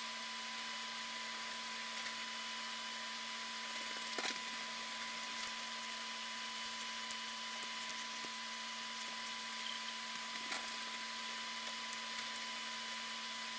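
Steady electronic hiss with a constant whine and a lower hum, broken by a few faint clicks, the clearest about four seconds in: noise on a track that holds no recorded sound.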